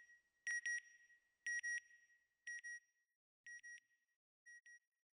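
Electronic beeping sound effect like a satellite's signal: five pairs of short, high beeps about a second apart, each pair fainter than the last, fading away.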